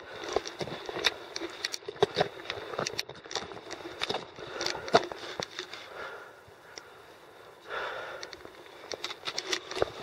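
A climber's footsteps on rocky ground: irregular clicks and scrapes, with breathing between them and a quieter stretch past the middle.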